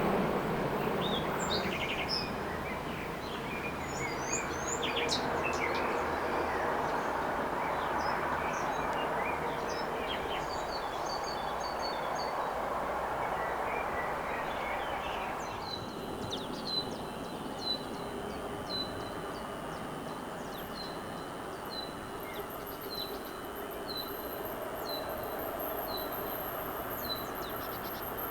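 The fading rumble of a train passing on the line, with birds chirping over it. After about 16 seconds it gives way to quiet countryside: a bird repeating a short high chirp about once a second, and a thin, high, steady insect buzz from about 20 seconds.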